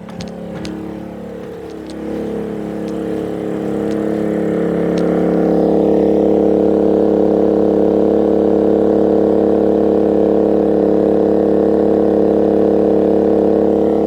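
Genmax GM3500iAED inverter generator's engine speeding up to carry the load after an RV's second air conditioner starts, its pitch rising over the first few seconds and then running steadily loud at the higher speed.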